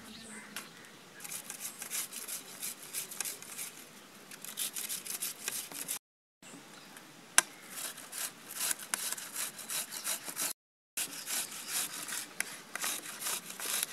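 Food being rubbed on a hand-held stainless steel grater over a plate, with rapid repeated rasping strokes. The strokes cut out dead twice for a moment.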